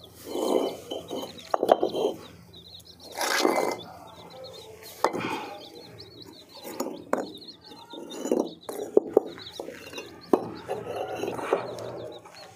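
Fired clay bricks being set and shifted by hand, knocking and scraping against one another and the brick floor in irregular clacks. Small birds chirp faintly in the background.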